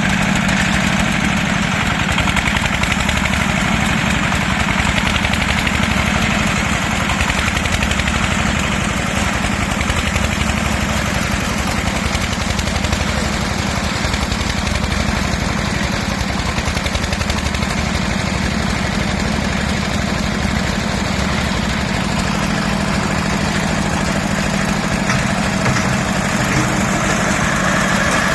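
Engine of a mini concrete lift machine running steadily without change.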